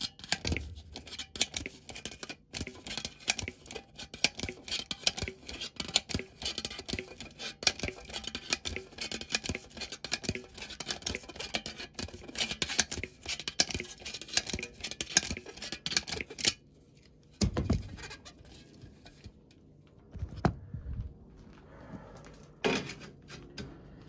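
Hand crimper squeezing the end of a galvanized steel flue pipe, a fast run of sharp metallic clicks and crunches for about sixteen seconds. After that it stops and a few dull knocks follow.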